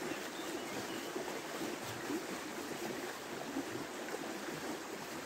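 River flowing: a steady, even rush of water.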